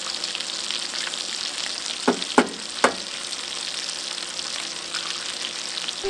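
Sliced sausage sizzling on a hot Skottle steel cooking disc, a steady frying hiss. Three sharp knocks stand out about two to three seconds in.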